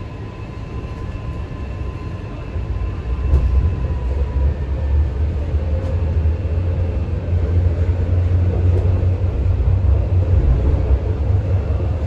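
MTR Kwun Tong Line C-train electric metro train pulling away from a station, heard from inside the carriage: a low rumble of wheels and running gear that builds and grows louder about two and a half seconds in as the train gathers speed. A thin steady whine fades out a few seconds in.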